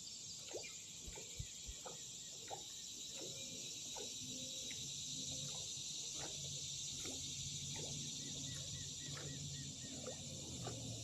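Steady, high insect chorus, with many short chirping calls scattered over it.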